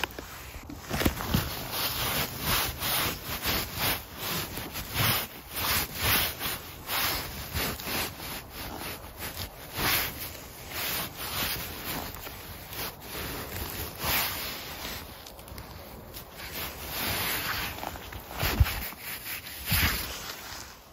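Irregular rustling and rubbing in many short bursts as gloved hands work through moss and grass, picking mushrooms.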